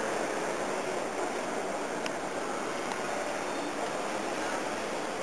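Steady background noise, an even hiss with no distinct events, and a faint click about two seconds in.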